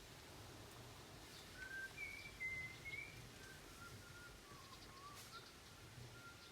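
Near-quiet background with a few faint, short whistled bird calls, starting about one and a half seconds in.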